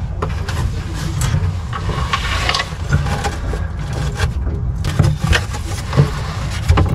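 Stiff cardboard template being handled and pressed against a fiberglass hull, with short scrapes, rustles and taps, over a steady low rumble.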